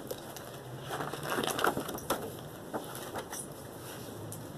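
Stiff glossy calendar pages rustling and crackling as a page is turned and handled, loudest about a second and a half in.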